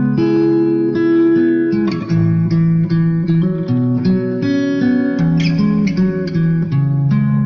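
Background music: an instrumental stretch of a song, with strummed guitar chords changing every second or so.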